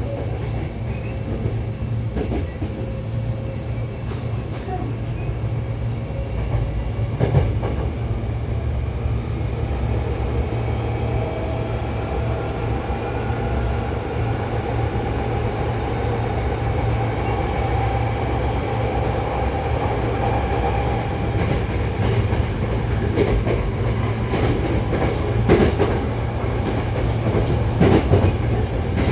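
Hankyu 8000 series electric train running, heard from inside the car: a steady rumble of wheels on rail with a faint motor whine, and clicks over rail joints that come thicker near the end.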